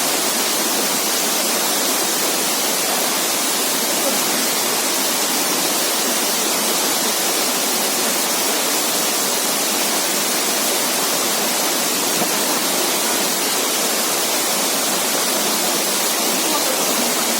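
Waterfall pouring: a steady, loud, even rush of falling water.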